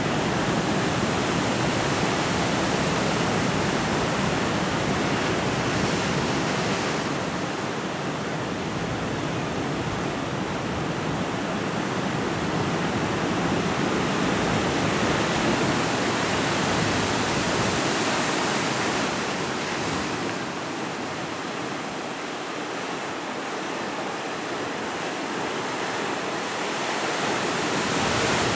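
Atlantic surf breaking on a rocky shore: a steady rush of waves that swells and eases slowly.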